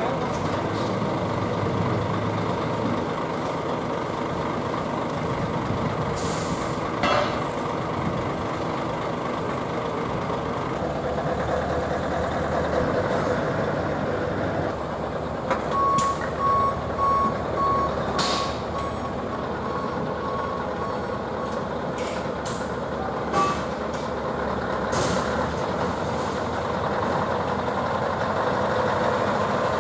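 Heavy Scania trucks' diesel engines running steadily, with several short sharp air-brake hisses. Around the middle a reversing alarm beeps about twice a second for some five seconds.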